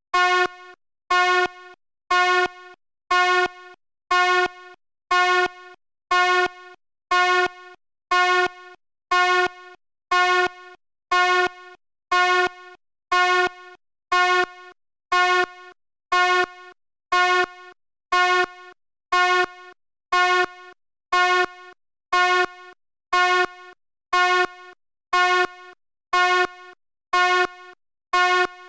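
Fire alarm sounding in short pitched blasts, about one a second, steady throughout. Each blast starts with a click and drops to a brief fainter tail before the next.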